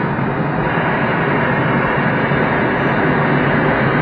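Steady rush of air past a glider's canopy in flight, an even noise with no engine.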